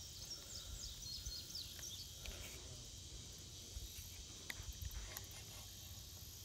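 Faint outdoor ambience: a steady high insect drone, with a few short chirps in the first two seconds and a few light clicks about four to five seconds in.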